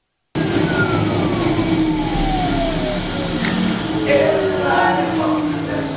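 Piper Meridian's PT6A turboprop heard from the cockpit during the landing rollout and turn-off, cutting in suddenly as a loud rush of engine and propeller noise. Whines slide down in pitch as the power comes back after touchdown.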